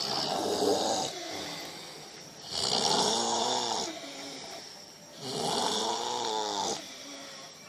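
A person snoring heavily: three loud, rasping snores about two and a half seconds apart, with quieter breathing between them.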